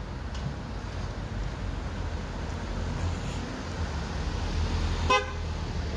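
A car horn gives one short toot about five seconds in, over a steady low rumble.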